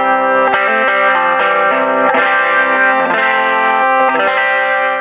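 Electric guitar played through a freshly modded and reassembled Fender Pro Junior tube combo amp: strummed chords that change about once a second, the last one left ringing near the end.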